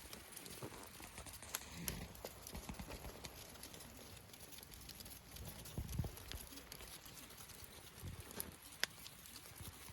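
Wood bonfire crackling: irregular sharp pops and snaps, one loud snap near the end, with a few soft low thuds.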